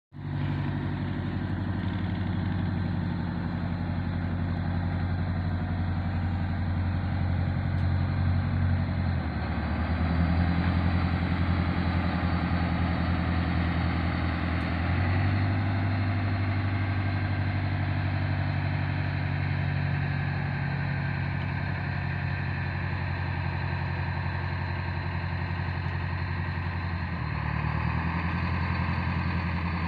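A boat's engine running steadily at low speed, a continuous low drone whose note shifts slightly a few times.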